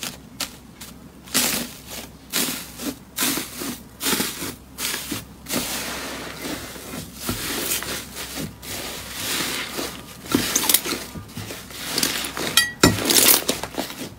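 Hands pressing and kneading slime covered in blue metallic foil sheets: the foil crinkles and crackles while the slime squelches. It comes as a dense run of irregular crackles, with a few sharper snaps near the end.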